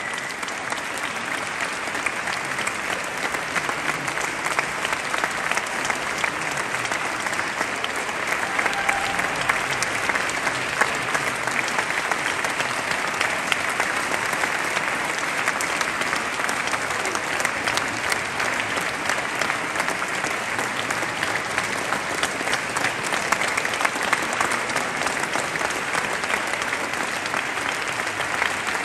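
A large audience applauding steadily, an even wash of many hands clapping.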